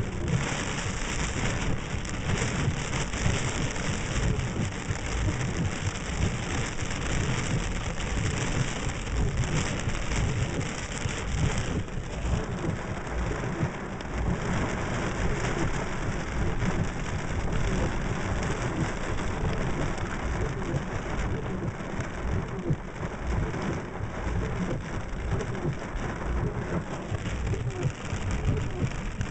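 Thunderstorm downpour: heavy rain pouring, with strong wind gusts buffeting the microphone and a deep rumble underneath. The high rain hiss softens slightly about twelve seconds in.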